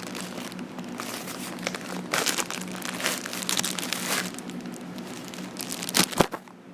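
Packaging crinkling and rustling as a mail-order parcel is handled and opened, in irregular bursts, with a couple of sharp knocks near the end.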